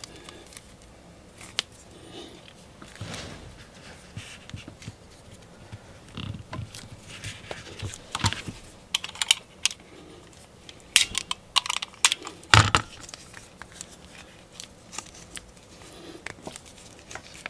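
Thick rubbery plastic wrap being slit with a utility knife and peeled off a cylindrical battery cell by hand: irregular small clicks, scrapes and crinkles, with the sharpest crack about two-thirds of the way through.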